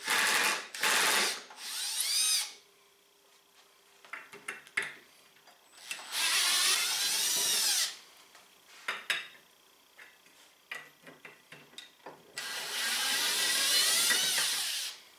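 Cordless drill running in bursts, its motor whine rising and falling with the trigger: three quick bursts in the first couple of seconds, then two longer runs of about two seconds each. It is backing out Loctite-set Torx screws from a Polaris RZR XP 1000 secondary clutch.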